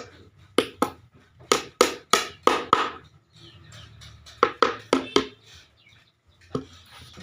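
Hammer blows on wooden boards, about a dozen sharp strikes in three quick runs with a single blow near the end.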